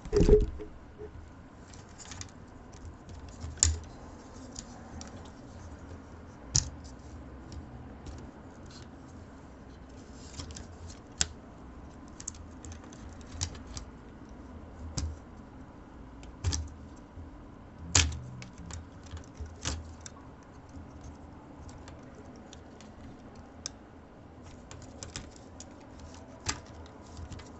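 Irregular clicks, taps and small knocks of plastic and metal parts as a netbook's motherboard is disconnected and pried out of its plastic shell, with a few louder knocks among the lighter ones.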